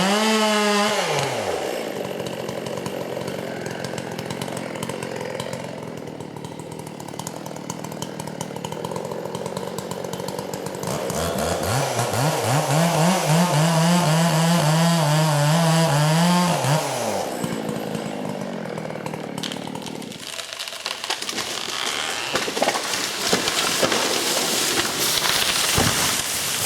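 Chainsaw engine dropping from high revs to idle, idling, then revved to a high steady pitch for about four seconds before falling back to idle. Near the end comes a stretch of loud cracking and crackling.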